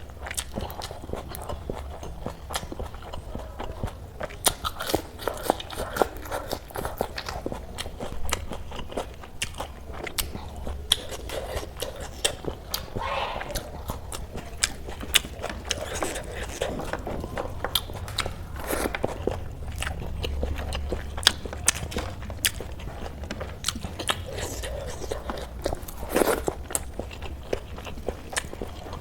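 Close-miked eating: biting and chewing, with many short crisp crunches and wet mouth clicks scattered irregularly throughout.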